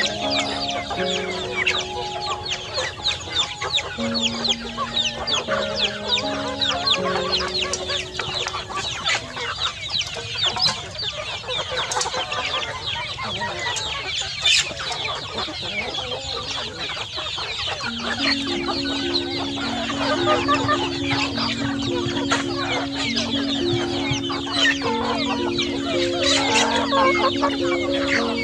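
A large flock of chickens clucking and cheeping continuously as they feed, many short high calls overlapping. Background music with a simple melody plays over the birds in the first few seconds and again from about two-thirds of the way through.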